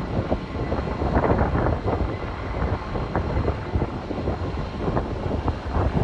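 Firefighting helicopter flying overhead: steady rotor and engine noise, loud and dense.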